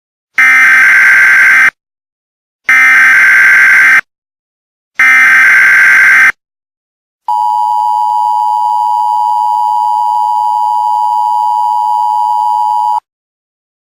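Emergency Alert System SAME header: three identical bursts of screeching digital data tones, each about a second and a half long with short gaps between, followed by the EAS two-tone attention signal, a steady tone held for almost six seconds that cuts off abruptly.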